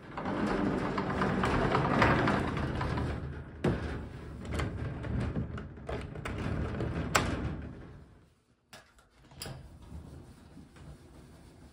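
Wooden sliding door unlatched and slid open: a few sharp clicks and knocks from its metal latch and frame, the loudest about seven seconds in. Before that, several seconds of steady shuffling noise from movement.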